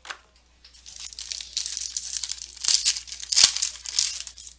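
Foil wrapper of a Panini Crown Royale football card pack being torn open and crinkled by hand: a run of crackling rips starting about a second in, loudest in the second half.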